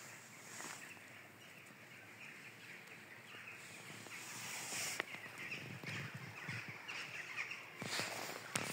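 Faint rustling of dry fallen leaves and handling noise as someone moves close around a log on a leaf-covered forest floor, louder in the second half, with one sharp click about five seconds in.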